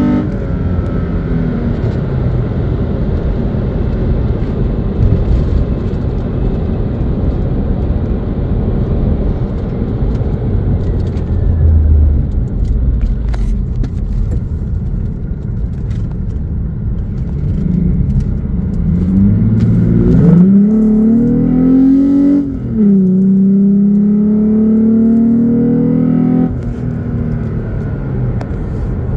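A 2017 Toyota Tacoma engine fitted with a K&N Blackhawk cold air intake, heard from inside the cab while driving. At first it runs steadily with road noise. About twenty seconds in it revs up under acceleration: the pitch climbs, drops at an upshift, climbs again and falls away near the end.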